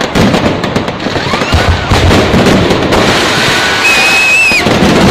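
Fireworks display going off close by: dense crackling and banging from the bursts, with a held high whistle near the end.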